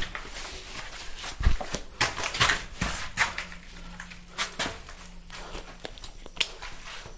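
Handling noise as a backpack is shouldered and a hand-held camera is picked up and carried: irregular rustles, clicks and knocks, the loudest about two to three seconds in, with footsteps.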